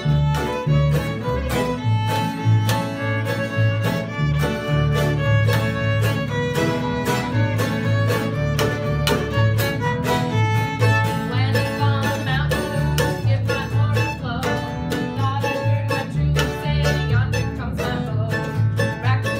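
A bluegrass string band playing a lively tune. An upright bass plucks a steady beat under strummed mandolin and acoustic guitar, and a fiddle carries the melody.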